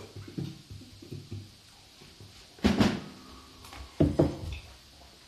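A man drinking from a glass close to a phone microphone: two short, loud gulping sounds, about two and a half and four seconds in, with smaller sounds between.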